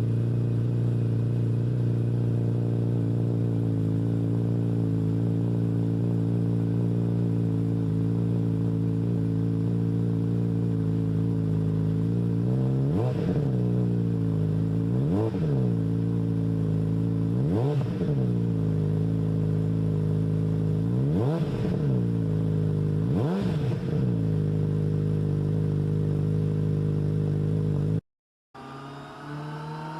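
2022 Suzuki Hayabusa's inline-four engine idling steadily through a slip-on exhaust, then revved in five short throttle blips a couple of seconds apart. The idle cuts off suddenly near the end.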